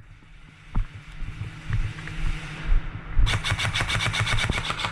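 Airsoft gun firing a rapid full-auto burst, about a dozen shots a second, starting about three seconds in. Before that there are low rumbling and handling knocks.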